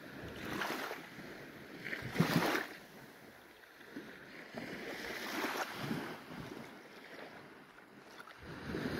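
Small waves washing onto the shore, a soft hiss that swells and fades every couple of seconds.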